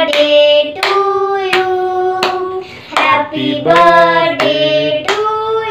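Singing in long held notes, with hands clapping along in time, about one clap every three-quarters of a second.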